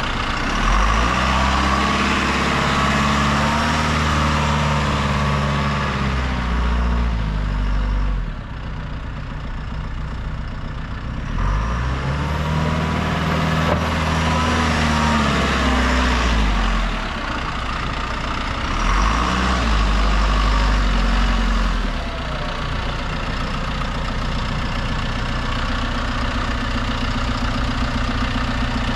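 John Deere 310SL backhoe's diesel engine running, speeding up and settling back three times before idling steadily for the last several seconds.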